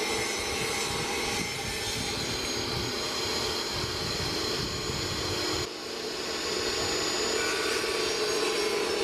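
Electric woodworking power tool running steadily with a constant motor whine, broken by an abrupt change about six seconds in before it carries on.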